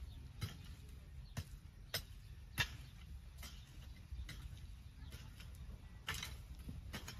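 A series of sharp, irregularly spaced clicks and light knocks, about one every second, over a low steady background rumble.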